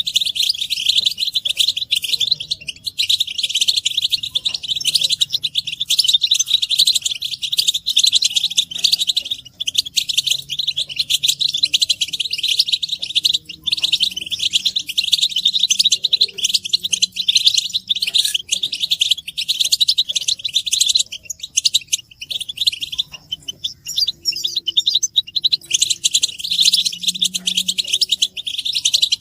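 European goldfinches twittering: a dense, unbroken stream of rapid, overlapping high chirps and chattering calls, the excited group twittering of goldfinches.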